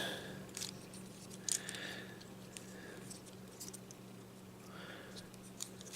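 Faint, scattered clicks of a plastic Transformers action figure's parts being moved and snapped into place by hand, a few irregular clicks over a steady low hum.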